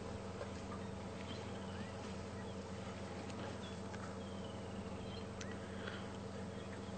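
Quiet bush ambience: a steady low hum under a few faint, short high chirps and insect buzzing.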